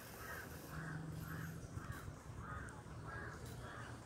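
A crow cawing over and over, about two short caws a second, faint, over a low background hum.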